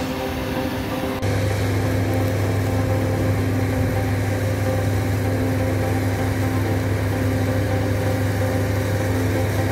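An engine running steadily, with a hose spraying water. About a second in, the sound changes abruptly to a louder, deeper steady hum.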